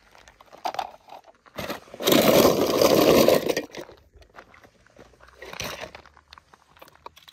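Rough crunching, scraping noise lasting about two seconds, with scattered small clicks and knocks before and after it: plastic toy cars being moved about.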